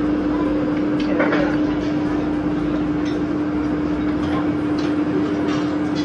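Soft-serve ice cream machine running with a steady hum while soft-serve is dispensed from it, over faint dining-room chatter.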